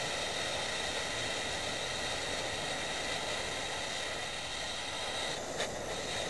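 Hand-held gas torch flame hissing steadily while it heats a copper pipe joint for sweat soldering, with a light tap near the end.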